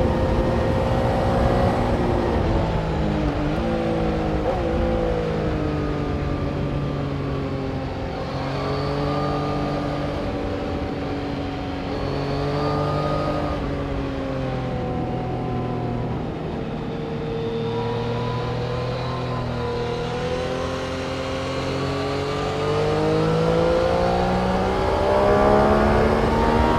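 Engines of track vehicles working through a corner. Their pitch repeatedly drops and climbs again as they slow and accelerate, with several engine notes overlapping.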